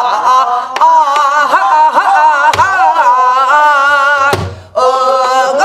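A woman singing a Namdo folk song in long, wavering held notes. A buk barrel drum is struck three times, about two seconds apart.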